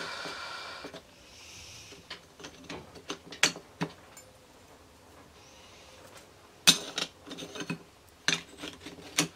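Clutch plates of a Derbi Euro 3 engine being slid and seated by hand into the clutch basket: scattered metallic clicks and clinks, a few of them sharp, with a soft rustle of handling in the first two seconds.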